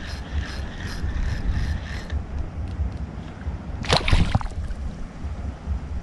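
Spinning fishing reel being cranked, a steady whine pulsing with each turn of the handle, about three times a second, stopping about two seconds in. About four seconds in, a short splash at the water's surface. Wind rumbles on the microphone throughout.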